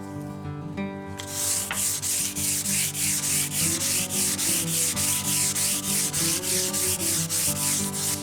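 Sandpaper rubbed back and forth over the wood of a wooden spar in quick even strokes, about four a second, starting about a second in. Guitar background music runs underneath.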